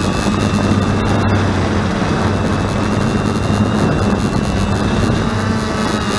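Eye One Xtreme quadcopter's electric motors and propellers whirring steadily in flight, heard from the Mobius camera mounted on the drone, so the motor hum and prop noise are close and loud.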